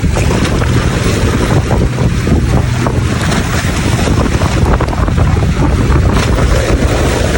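Strong wind buffeting the microphone: a loud, steady, low rumble of noise that wavers in strength.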